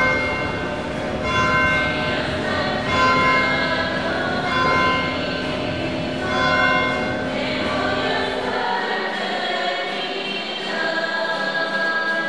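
Choir singing with music, in long held notes that change every second or two; the low drone under it drops out about nine seconds in.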